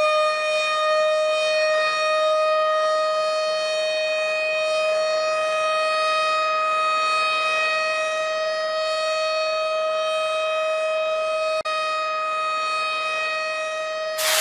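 Air-raid siren sounding on one steady high pitch, with a split-second break near the end; a loud hiss cuts in at the very end.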